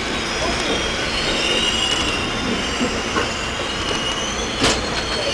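Amtrak passenger train rolling through the station, heard from inside the coach: steady rumble of the running gear, with a high steel-wheel squeal on the rails that sets in about a second and a half in and holds. There is one sharp click near the end.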